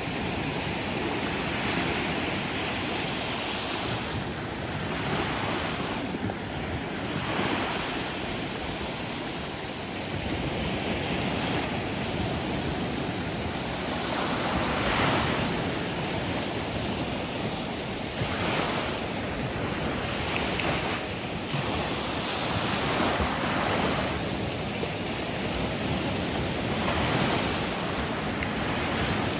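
Sea waves breaking and washing in, a continuous rush with a louder surge every few seconds, and wind rumbling on the microphone.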